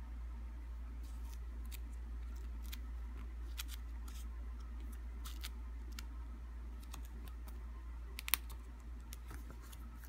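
Clear plastic photo-album sleeves crackling and ticking under the fingers as the pages are held and turned: a scatter of small sharp clicks, with one louder snap about eight seconds in, over a steady low hum.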